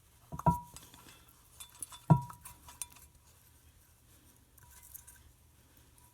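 Metal parts clinking against each other a few times, each strike leaving a brief ring; the loudest comes about two seconds in, followed by faint handling noise.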